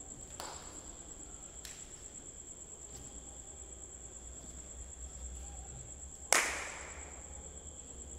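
A few light knocks of feet on a bench as performers step up onto it, then one loud, sharp knock about six seconds in that rings on briefly in the hall. A steady high-pitched electrical whine runs underneath.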